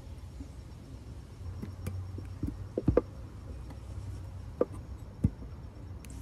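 A few small clicks and knocks as a new brake pad is handled and fitted into the caliper carrier bracket's spring clips of a Subaru BRZ front brake. The loudest come about three seconds in, with more a second or two later.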